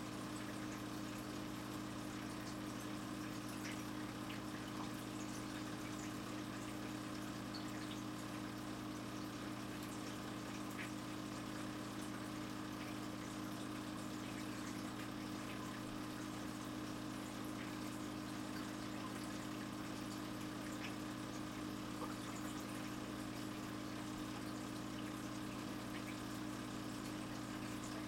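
Aquarium air stone bubbling steadily, with faint scattered ticks of bursting bubbles, over a constant low hum from the tank's equipment.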